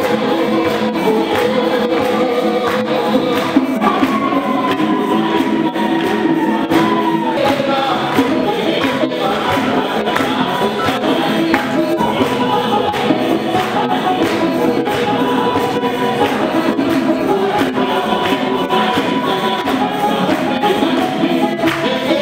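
Choir and congregation singing a gospel song together, held notes over a steady percussive beat.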